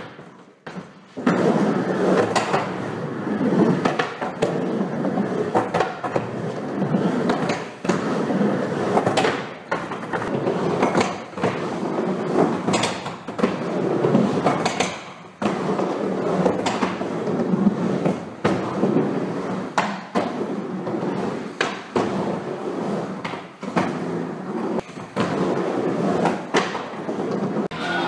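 Skateboard wheels rolling on concrete ramps and a bowl, with frequent sharp clacks and knocks as the board strikes the ramp surface and coping.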